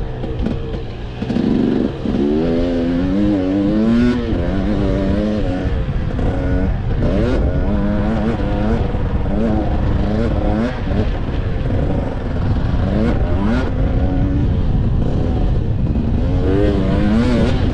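Dirt bike engine heard from the rider's own camera, revving hard, its pitch climbing and dropping again and again as it shifts through the gears, over a heavy low rumble of wind and track noise.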